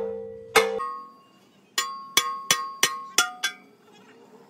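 A hammer striking a large steel wheel rim, the rim ringing like a bell after each blow. One blow comes about half a second in, then after a pause six quicker blows follow with a higher-pitched ring.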